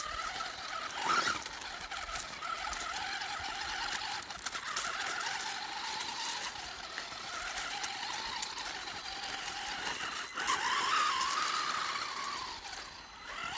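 WLtoys 12428 RC crawler's electric motor and gearbox whining as it drives over dirt and sand, the pitch wavering up and down with the throttle and swelling near the end, with scattered light clicks.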